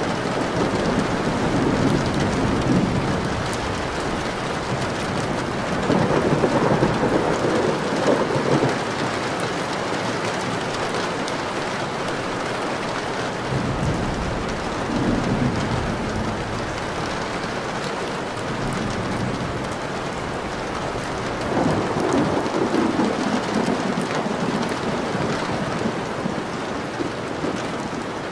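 Steady rain falling on a window, with long rolls of thunder rumbling three times: about six seconds in, about halfway, and again near the three-quarter mark.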